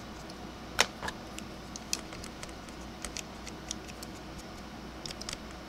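Scattered light clicks and taps of a paintbrush and fingers working over a painted plastic model truck, with one sharper click a bit under a second in and a quick run of small clicks near the end, over a low steady hum.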